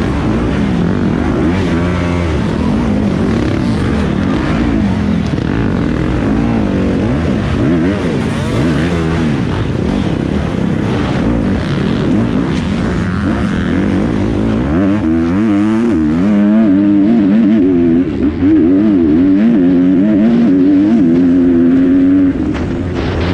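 Kawasaki dirt bike engine heard from on board, revved up and down in short bursts as the bike picks its way slowly through rocks. About two-thirds of the way in it opens up, louder, with the pitch climbing and dropping as it accelerates and changes gear, with one brief dip near the end.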